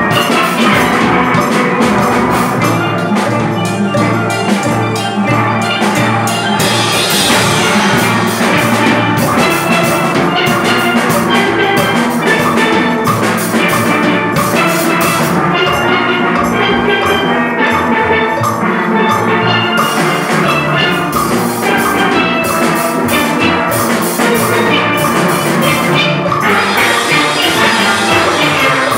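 A steelpan orchestra playing together. Many steel pans, from high tenor pans down to barrel-sized bass pans, are struck with mallets in a steady rhythm.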